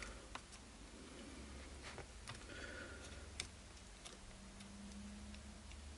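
Faint, scattered clicks and ticks of small plastic and metal parts handled while a shock absorber is fitted to an RC buggy: a few sharp separate clicks a second or so apart, with a faint low hum for about a second near the end.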